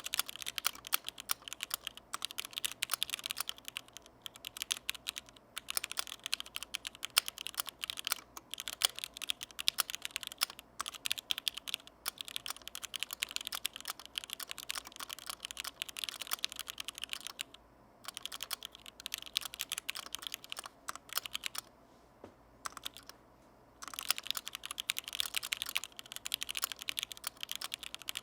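Typing on a Duck Blackbird mechanical keyboard with lubed vintage Cherry MX Black linear switches in a stainless steel plate: a fast, continuous clatter of keystrokes. It pauses briefly about 17 seconds in and again for about two seconds from around 22 seconds in.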